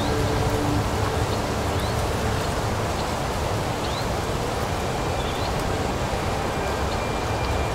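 Steady traffic noise of cars driving on a city street, with a few faint, short, high chirps every second or two.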